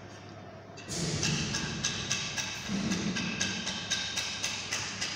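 A low steady hum for about a second, then background music starts suddenly, with a steady percussive beat.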